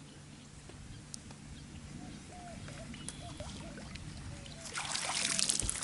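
A hooked bass splashing and thrashing at the surface as it is reeled to the boat, with a loud burst of splashing near the end. Faint bird chirps come before it.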